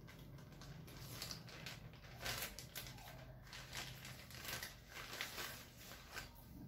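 Plastic packaging bag crinkling and rustling as it is handled and opened: faint, irregular crackles.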